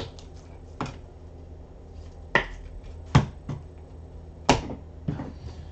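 Trading cards and packs being handled on a desk: about six sharp snaps and taps at irregular intervals, over a low steady hum.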